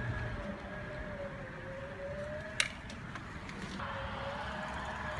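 Electric bike's mini hub motor whining at a steady, slightly wavering pitch as the bike rides, over low road and wind rumble, with one sharp click about halfway through.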